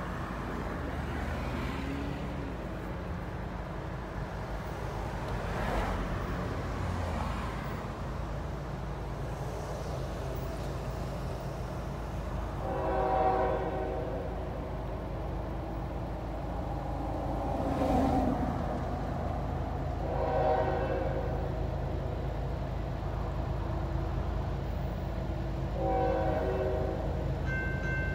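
Freight locomotive horn on an approaching Norfolk Southern coal train, sounding several chord blasts over a steady low rumble; the blasts come about halfway through, again several seconds later, and near the end. Near the very end a grade-crossing bell starts ringing.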